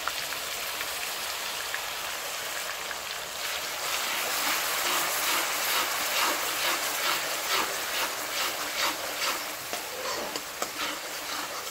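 Onion and garlic paste sizzling in hot mustard oil in a kadai, with a slotted metal spatula stirring and scraping the pan in short repeated strokes from about four seconds in.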